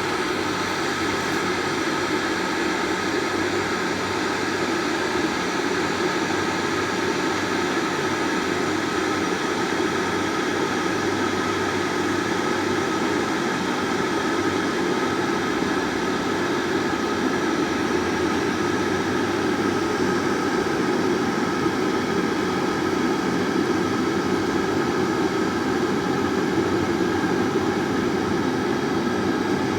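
Water heating and boiling in an electric kettle: a steady rushing rumble that grows slightly louder near the end.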